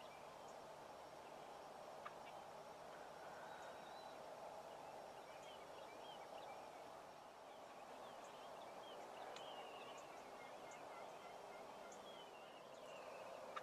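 Faint wild turkey gobbles and calls: short chirpy notes scattered throughout, over steady background noise.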